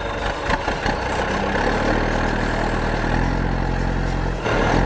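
A vehicle engine running steadily, with a brief drop about four and a half seconds in before it carries on.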